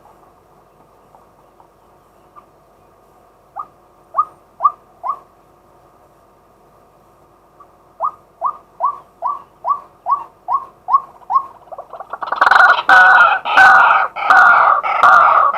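Male white-breasted waterhen calling. A few short rising notes come first, then a quickening run of about nine. About twelve seconds in they break into a loud, rapid, harsh series of repeated calls.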